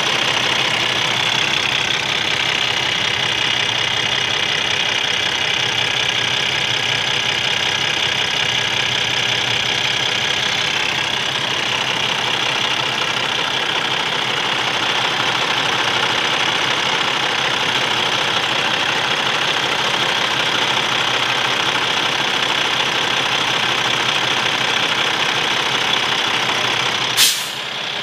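Cummins ISX15 inline-six diesel engine idling steadily, heard close up in the open engine bay. About a second before the end there is a single sharp click, and the sound drops a little.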